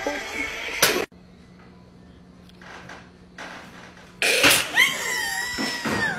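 A sudden loud smack, then high-pitched screaming, with cries that waver and fall in pitch.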